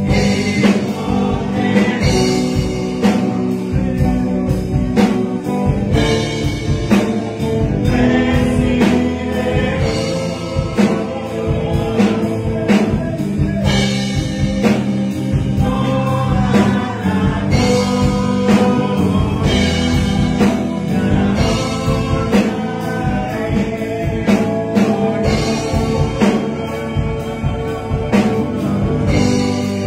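A man singing a Spanish-language worship song into a microphone over instrumental backing with a steady drum beat.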